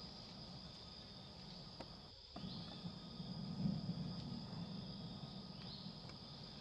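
Outdoor ambience with a steady high-pitched insect trill over a low background hum; the sound drops out briefly about two seconds in.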